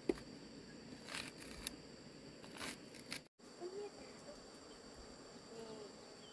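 Crickets chirring steadily at a high pitch. Over the first half come a few short scrapes of a knife cutting kernels off a corn cob into a pot.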